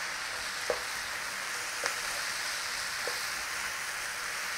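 Sliced apples, onion and leek sizzling gently in a non-stick frying pan as a wooden spatula stirs them, with three soft knocks of the spatula on the pan.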